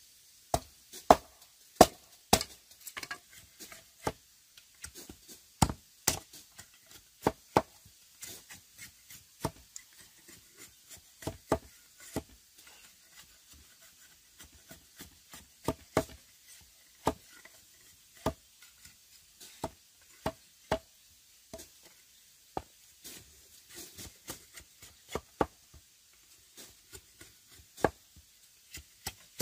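Irregular chopping: a blade striking wood, about one or two sharp knocks a second, some much louder than others and a few with a brief ringing note.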